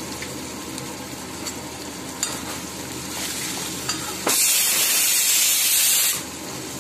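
Vegetables sizzling as they fry in a pan, with faint scrapes of a slotted spoon stirring them. About four seconds in, a pressure cooker whistle goes off, a loud hiss of escaping steam lasting about two seconds, then cuts off.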